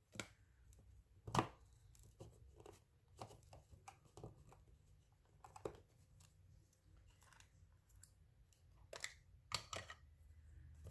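Paper collage cutouts being handled and trimmed with scissors: a faint, scattered series of small snips, taps and paper rustles, with a few sharper clicks.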